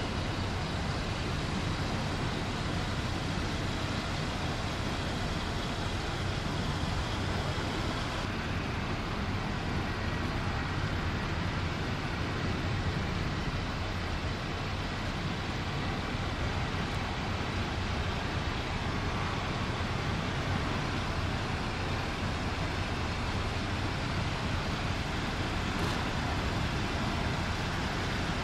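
Steady airport background noise: an even, continuous rumble of traffic and aircraft with a low hum and no distinct events.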